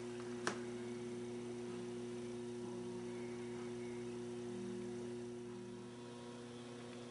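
Faint, steady electrical mains hum over a light hiss, with one small click about half a second in.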